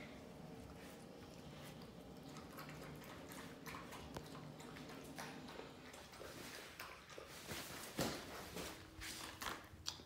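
Faint scuffling and scattered light taps of puppies and a person moving about on a bare concrete floor, over a low steady hum, with one sharper knock about eight seconds in.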